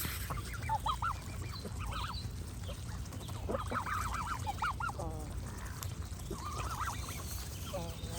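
Geese honking in short bursts of calls: a couple about a second in, a run of several in the middle ending in one falling call, and more near the end. A steady low rumble lies underneath.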